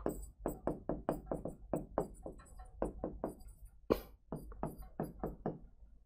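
Stylus tapping and knocking against a digital writing screen as words are handwritten: a quick, uneven run of light knocks, about four or five a second, over a faint low hum.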